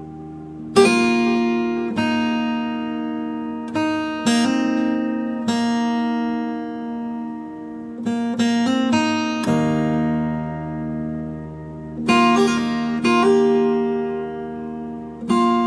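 Acoustic guitar playing slow, relaxing music: plucked notes and chords that ring out and fade, with a quick run of notes a little past the middle.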